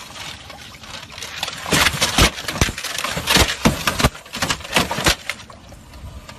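A quick, irregular run of loud knocks and thumps lasting about three and a half seconds, over a noisy background.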